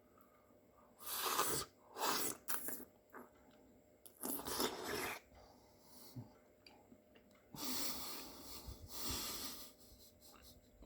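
Eating a fresh oyster from the shell: wet slurping and sucking noises in four separate bursts, the longest near the end, with some chewing.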